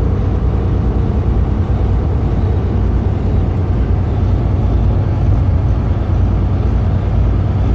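Steady low rumble of a truck's diesel engine and road noise, heard from inside the cab while driving.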